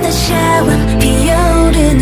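Background pop music with a sung melody over a steady bass.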